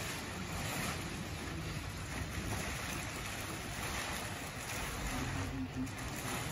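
Steady rushing noise of water and waves, a sound effect played through the hall's loudspeakers.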